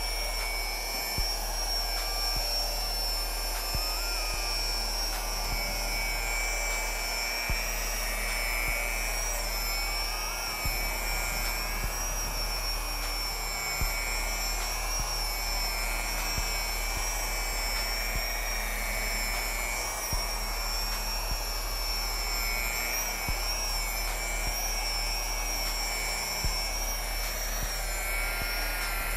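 TackLife electric polisher running steadily with a high motor whine, its foam pad buffing a coat of polish into an oxidized fiberglass boat hull. A few light knocks sound now and then as the pad is moved along.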